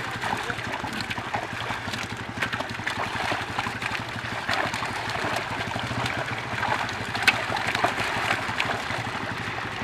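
Carp (catla, rohu and mrigal) crowded in a drawn-up seine net, thrashing and splashing at the surface. The water churns continuously with frequent sharp splashes, over a steady low hum.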